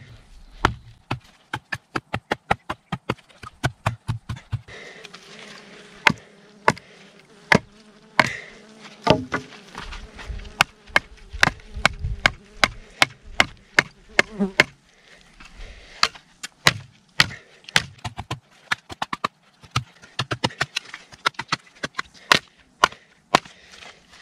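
Victorinox Venture fixed-blade knife being batoned through wood: a wooden baton strikes the blade's spine over and over, sharp knocks about one to two a second with brief pauses.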